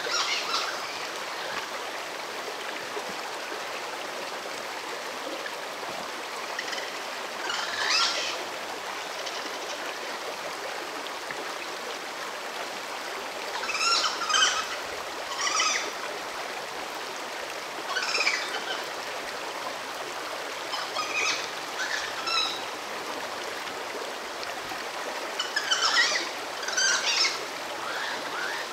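Shallow stream running over stones, a steady rushing. A bird calls in short high chirping phrases every few seconds.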